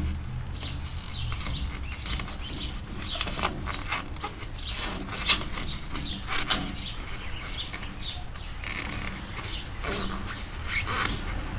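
A utility knife cutting and old, weathered foam pipe insulation being pulled off an air conditioner's copper line: irregular short scrapes and rustles as the foam and wrap are worked by hand.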